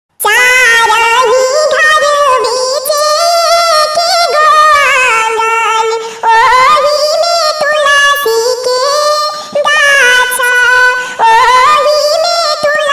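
A bidai geet, the farewell song sung for a daughter leaving home at her wedding, sung by a single high voice with long held notes and sliding pitch. It starts a moment in, with no instruments heard under the voice.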